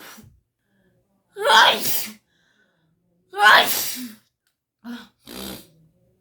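A woman sneezing hard twice, about two seconds apart, during a sneezing fit from a rhinitis attack. Shorter, quieter bursts follow near the end.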